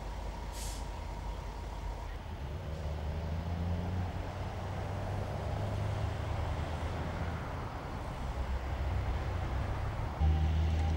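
A vehicle engine idling with a steady low hum over road traffic noise; the hum grows louder near the end. A short hiss about half a second in.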